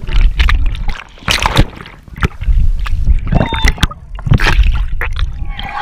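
River water splashing, sloshing and gurgling over a waterproof camera held at the surface as it dips in and out of the water, with a series of sharp, irregular splashes over a low rumble.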